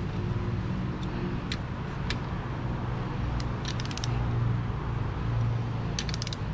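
Short runs of quick metallic clicks from a ratchet wrench being worked back and forth on the engine, about four seconds in and again near the end. A few single clicks and a steady low background hum sound with them.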